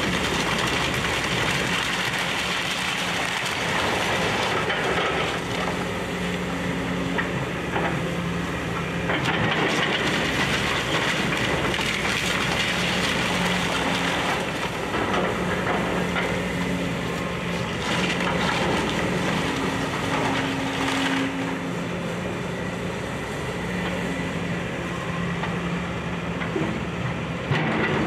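Excavator demolishing a house: its diesel engine running, the engine note coming and going, over continuous crunching and clattering of wood and debris.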